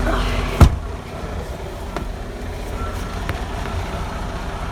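Freightliner semi-truck's diesel engine idling, a steady low rumble, with one loud sharp knock about half a second in.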